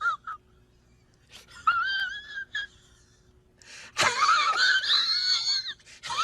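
A string of short meme sound-effect clips played one after another: high-pitched, wavering, squeaky tones with quiet gaps between them, and a louder, harsher clip starting suddenly about four seconds in.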